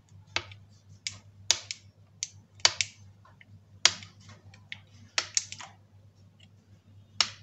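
Metal pizza cutter clicking against a tray as it is pressed through dough to score a row of cuts: sharp, irregular clicks, roughly one or two a second, over a faint steady low hum.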